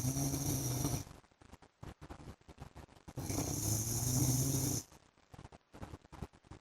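A man snoring in his sleep: low-pitched snores with a hiss on top, repeating about every four seconds. One snore ends about a second in and the next runs from about three seconds to nearly five, with a quiet gap between.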